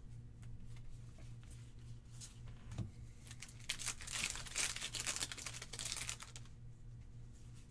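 Foil Pokémon booster pack crinkling as it is torn open, loudest about midway through, over a steady low hum.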